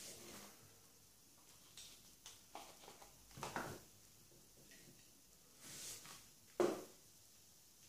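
Faint tabletop handling sounds of a small cardboard cigarette packet being moved onto a close-up mat and handled: light ticks and rustles, a brief louder rustle a little before halfway, and a sharp click near the end.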